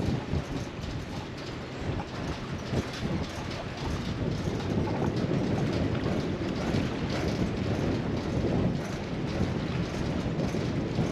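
Strong wind buffeting the microphone: a steady low noise that grows louder about four seconds in.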